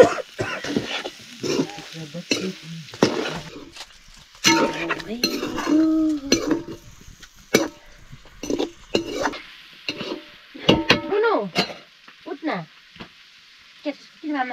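Buffalo meat frying and sizzling in a pan, stirred with a spoon that scrapes and clicks against the pan now and then. The sizzle thins out after about ten seconds.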